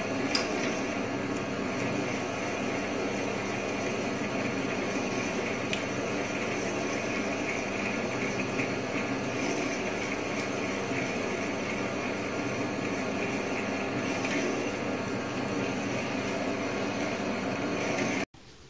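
Optimum D180 x 300 mini lathe running steadily under power, its chuck spinning while a tailstock-held drill bit bores into the workpiece: an even machine hum with a fixed whine. Cuts off suddenly near the end.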